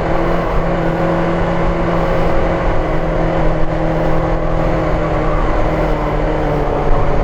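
Benelli TNT600's inline-four engine running steadily under way, its note holding level and easing down slightly near the end, over a steady rush of wind and road noise.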